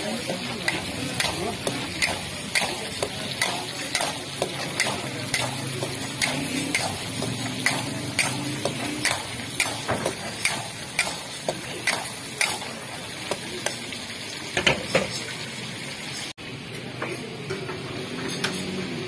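A metal utensil stirring chicken karahi in an iron karahi, scraping and knocking against the pan about one and a half times a second, over the steady sizzle of meat frying in oil. The strokes thin out near the end.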